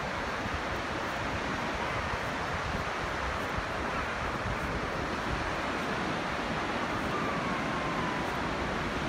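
Steady rush of ocean surf on a shallow beach, with wind buffeting the microphone.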